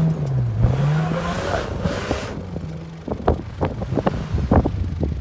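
Toyota Land Cruiser 80-series engine revving as it works through deep snow. The pitch dips and climbs again in the first second and a half, then fades. In the last couple of seconds there is a quick run of sharp knocks and crunches.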